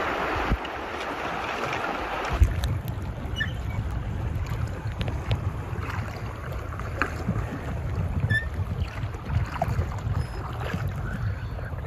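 Shallow river water rippling over gravel with a steady hiss, joined about two seconds in by a low rumble of wind buffeting the microphone.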